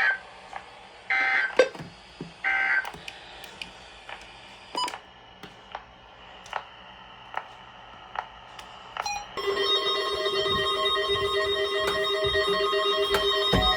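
Weather radio broadcast sending three short bursts of SAME digital data about a second and a bit apart, the end-of-message code that closes an alert. Scattered clicks of radio static follow. About nine seconds in, steady held-chord music begins.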